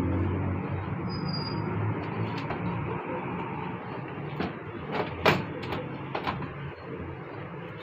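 Several sharp clicks and knocks of hard parts being handled, the loudest just past halfway, over a steady low hum.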